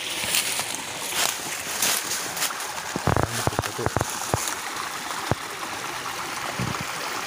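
A run of sharp knocks and taps about three seconds in, from a machete chopping at the ground at the foot of a tree, over a steady rustling hiss.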